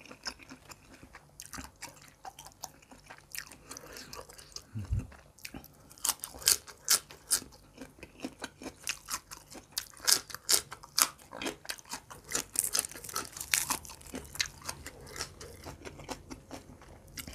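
A person chewing a mouthful of crunchy food, with irregular sharp, wet crunches and clicks that come thickest through the middle stretch.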